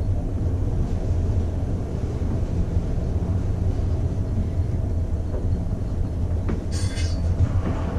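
Fast traction lift car running up its shaft: a steady low rumble of travel, with a brief higher-pitched sound about seven seconds in.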